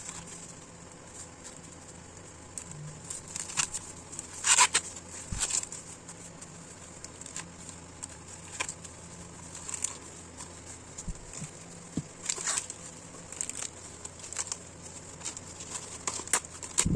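Green husks being peeled and torn off a fresh ear of corn by gloved hands: irregular rustling, crackling and tearing, with a few louder rips.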